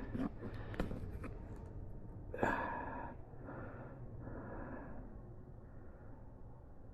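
A man breathing out heavily, a sigh about two and a half seconds in followed by two quieter breaths, with a few faint clicks before it.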